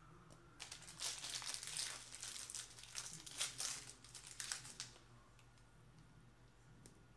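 Candy wrappers of Reese's peanut butter cups crinkling and tearing as they are unwrapped by hand, in a run of crackles that starts about half a second in and stops about five seconds in.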